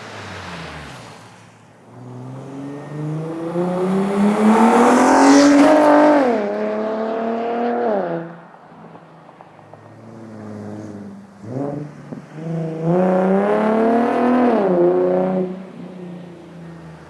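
Infiniti G37x's 3.7-litre V6 through an ISR single-exit exhaust, revving up twice: the pitch climbs for several seconds and then drops away. Between the two pulls there is a short blip.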